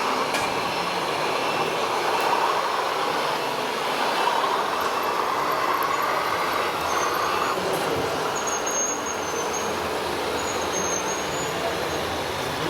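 Small electric motors and gearboxes of radio-controlled model trucks and tractors whining as they drive, rising and falling with the throttle.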